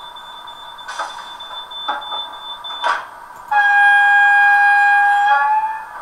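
Horn of an H0 model train, played through its sound decoder: one long steady note lasting about two seconds, rising slightly in pitch as it ends. Before it come three sharp clicks about a second apart.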